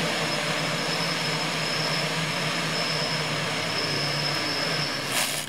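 Electric motors and propellers of a fixed-pitch quadcopter running steadily, with a thin high whine over a low propeller hum. A brief burst of hiss comes about five seconds in.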